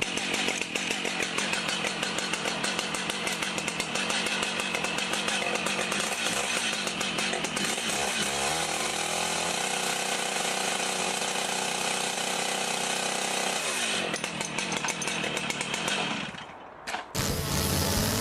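Chainsaw engine running at high speed, its note dropping to a lower steady pitch for about five seconds in the middle before rising again. Near the end it dies away, gives one brief burst, and a different engine sound cuts in.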